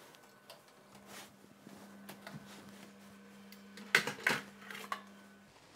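Oven door opened and a metal baking tray with a loaf pulled out along the oven rack, clattering in a few sharp knocks about four seconds in. A steady low hum runs underneath and stops near the end.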